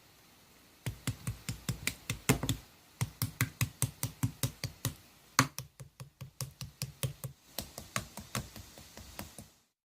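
A rapid run of sharp clicks, about four to five a second, like keyboard typing. It comes in stretches with short breaks and fades out near the end.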